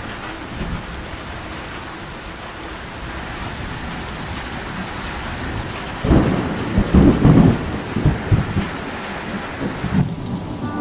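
Steady rain falling, with a loud low rumble of thunder starting about six seconds in and rolling in several surges for about three seconds.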